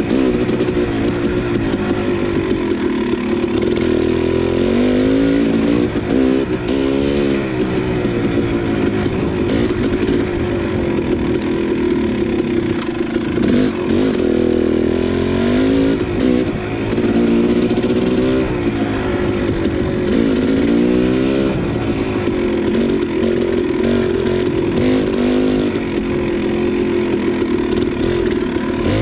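KTM 300 XC single-cylinder two-stroke dirt bike engine running under varying throttle, its pitch rising and falling in quick clusters several times.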